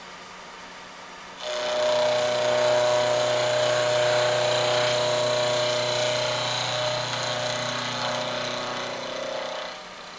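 Vertical milling machine's cutter cutting a flat on a shaft. A loud, steady cutting whine with a strong ringing tone comes in about a second and a half in and stops shortly before the end, over the running spindle's steady hum.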